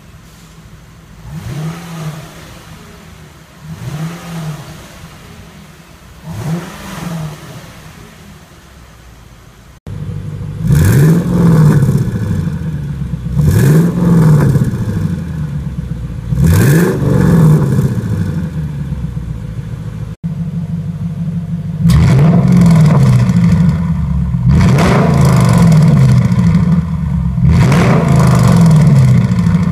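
Lexus LS460's 4.6-litre V8 exhaust idling and free-revving in three short blips per setting: first through the stock exhaust, then much louder through an Office-K Miracle full exhaust (front pipes, centre X-pipe, valved rear muffler) with its valve closed from about ten seconds in, and loudest with the valve open from about twenty seconds in.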